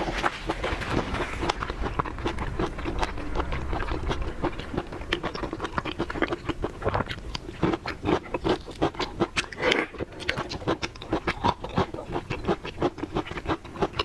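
Close-miked eating sounds of a person chewing large shrimp: a quick, irregular run of wet smacks and clicks, several a second.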